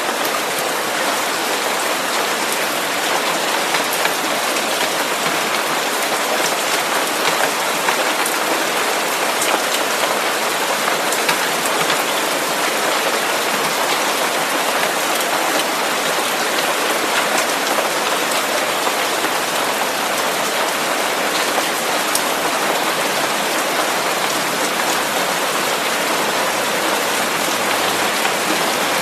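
Steady rain: an even, dense hiss with faint scattered drop ticks.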